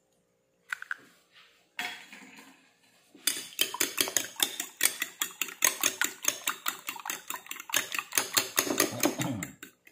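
A metal fork beating two raw eggs in a white bowl: from about three seconds in, a fast, even run of clinks of the fork against the bowl, about six a second. Before that, only a few faint sounds as the eggshell is emptied.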